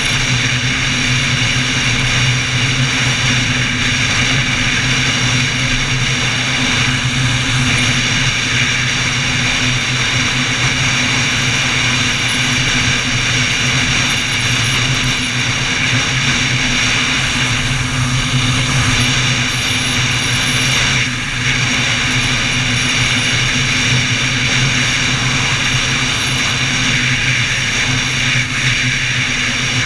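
Motorcycle running at a steady cruising speed, with wind rushing over the bike-mounted camera.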